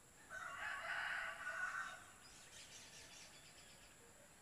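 A rooster crowing once, faint and distant.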